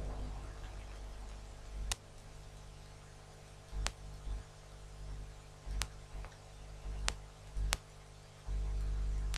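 Light, sharp clicks of small metal repair tools against a laptop motherboard, about five at uneven intervals, with low thuds of handling at the bench and a longer low rumble near the end, over a steady electrical hum.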